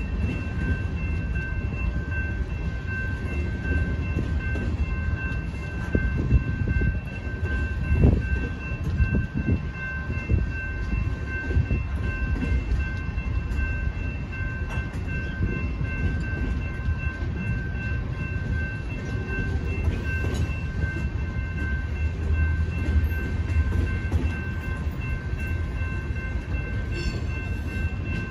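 Freight train tank cars rolling through a road crossing: a steady low rumble of wheels on rail, with a few louder knocks several seconds in. Over it the crossing's warning bell rings on and on.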